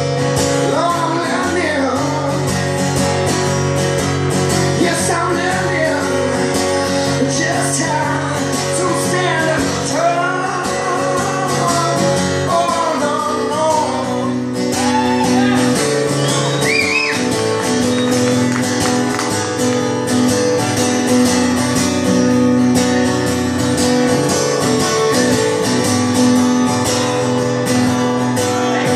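Acoustic guitar played steadily through a live song, with a man singing over it for roughly the first half; the rest is guitar alone.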